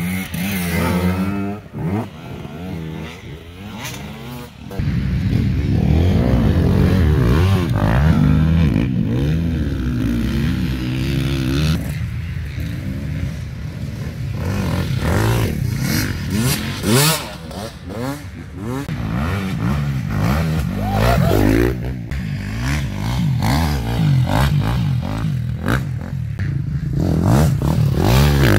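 Off-road dirt bike engines revving and accelerating on a muddy track, the pitch climbing and dropping again and again with the throttle and gear changes, with some clatter and scraping.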